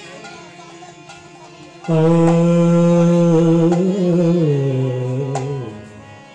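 Male voice singing one long held kirtan note that comes in loudly about two seconds in, steps down in pitch about halfway through and fades out near the end.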